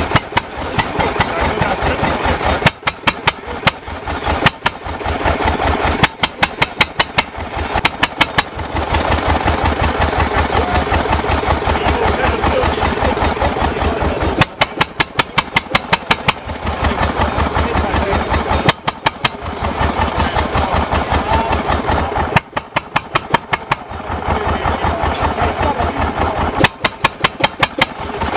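Deutz stationary diesel engine running cold just after starting, firing unevenly: clusters of sharp, loud exhaust beats come every few seconds between stretches of steadier pulsing running.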